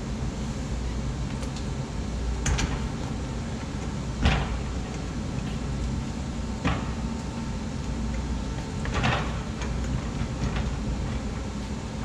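Four dull knocks and clunks as a motorcycle wheel and tire are set down on a tire-changer turntable and shifted into place over its rim clamps, the loudest about four seconds in, over a steady low hum.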